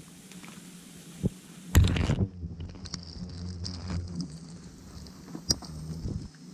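Rustling and crackling as a large papery wasp nest is handled and broken at by hand, with a person's plastic protective suit rubbing as they move. There is a loud knock about two seconds in, then scattered sharp clicks over a low steady hum.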